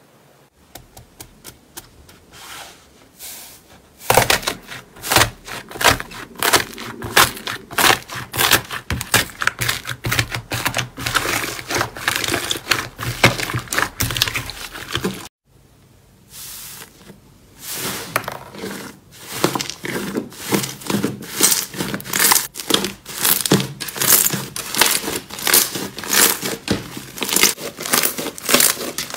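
Slime being squeezed and pressed by hand, giving a dense run of fast crackling and popping clicks, with a brief break about halfway before the crackling starts again.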